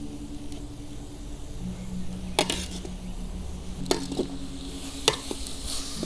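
Shredded young papaya sizzling as it is stir-fried in a metal wok, with a metal spatula scraping and knocking sharply against the wok a few times.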